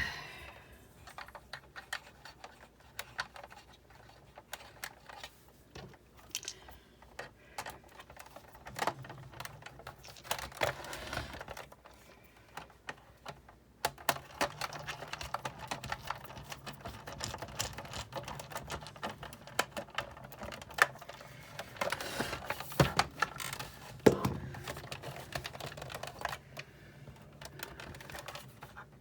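Parts of a Sizzix Big Shot die-cutting machine being handled and fitted together: irregular clicks, taps and light rattles, with a few louder knocks near the end.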